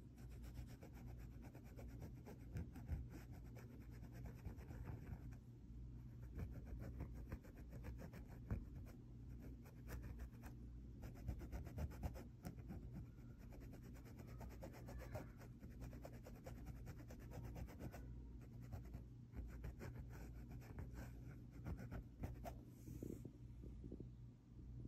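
A drawing tool scratching and rubbing over cloth in quick, short strokes. The sound is faint, with a low steady hum underneath.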